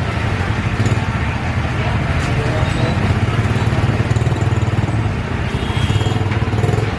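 A small motorcycle engine running steadily close by, a continuous low rumble with a fast flutter, over street and market background noise.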